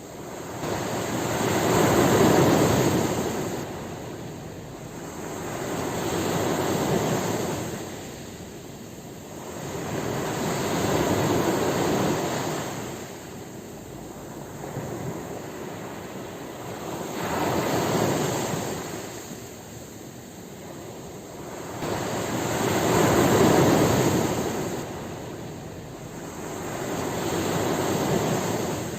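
Ocean surf, waves breaking and washing in slow swells that rise and fade about every five seconds, six in all, the loudest about two seconds in and again near the end.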